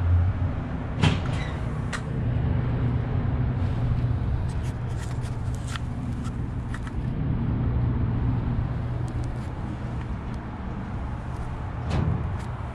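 Steady low mechanical hum over a rumble of background noise, with a few sharp clicks and knocks, the loudest about a second in and another near the end.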